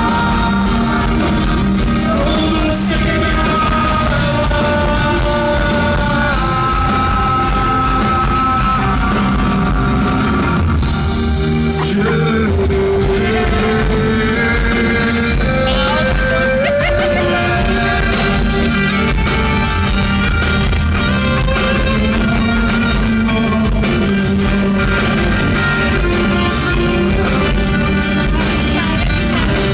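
Live rock band playing an instrumental passage, a held, gliding melody line over a dense, steady backing of guitars, bass and drums, recorded loud and compressed in a concert hall.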